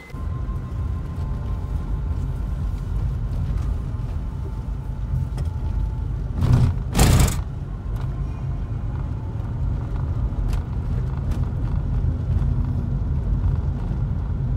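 Car driving through city streets, heard from inside the cabin as a steady low road rumble, with two short louder bursts of noise about halfway through.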